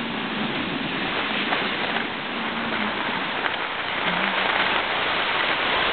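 Steady rushing hiss of skiing downhill at speed: skis sliding over snow mixed with wind across the microphone, growing slightly louder toward the end.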